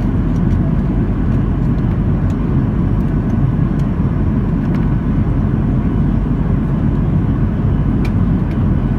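Boeing 737-800's CFM56-7B turbofan engines and airflow heard inside the passenger cabin in flight: a steady low rumble with a faint whine above it.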